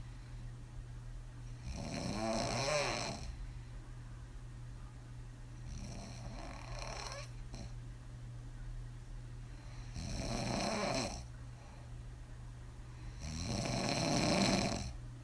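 A woman snoring hard on her back with her mouth open, lips blowing on the breath, after several drinks. Four snores come about four seconds apart, the last the loudest, over a steady low hum.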